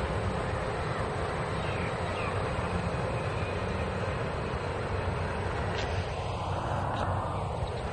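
EMU500 electric commuter train rolling slowly along the platform road, a steady running noise of motors and wheels. A short whirr and two faint clicks come about six to seven seconds in.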